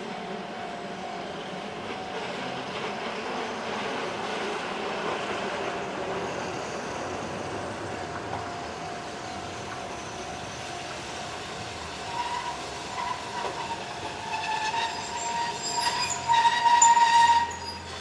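Keihan 600-series train (car 618) running in toward the camera, its noise slowly building. About twelve seconds in a high, wavering squeal joins and grows louder, loudest shortly before the end.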